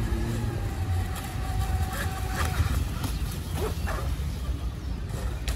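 Radio-controlled model boats running on a pond: a steady motor whine for a couple of seconds, over a low steady rumble.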